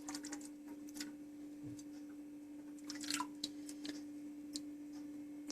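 Someone tasting hot broth from a spoon: faint scattered spoon clicks and a short sip, over a steady low hum.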